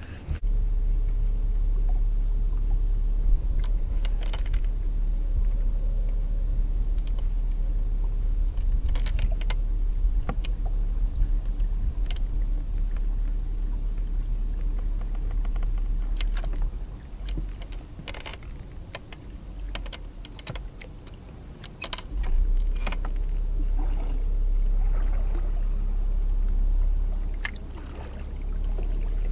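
Electric trolling motor on a bass boat running with a steady low hum, switched off for a few seconds past the middle and then run again. Scattered clicks and knocks from rod, reel and tackle handling on the deck.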